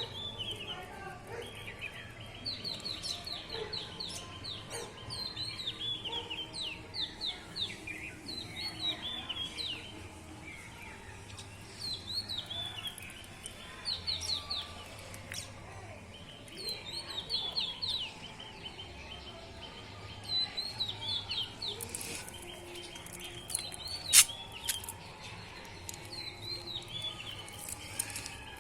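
Small birds chirping in quick runs of short, falling high notes, coming in bouts with brief pauses between. Late on, a single sharp click stands out as the loudest sound.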